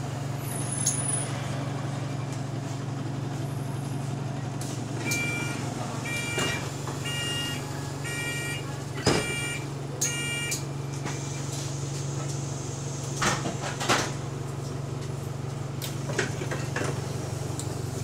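Single-decker bus engine idling with a steady low drone; the bus has an exhaust leak. Partway through, the door warning beeps about six times in a row, and near the end there are a few knocks as the doors open.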